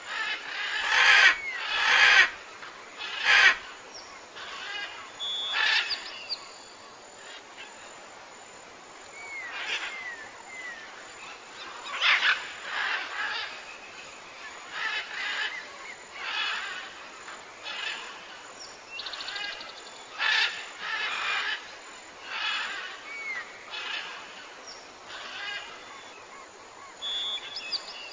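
Birds calling outdoors: a steady run of short chirps and calls, with small quick whistles, and a few loud sharp calls in the first few seconds.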